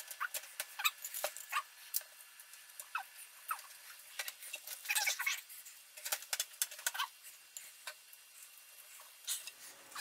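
Light clicks, taps and scratchy scrapes of a panel being fitted onto a Thermaltake Core V21 PC case, coming in quick irregular clusters, busiest about five seconds in and again around seven.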